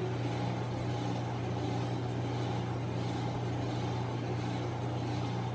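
Steady low hum with a faint even hiss over it; no distinct knocks or clinks.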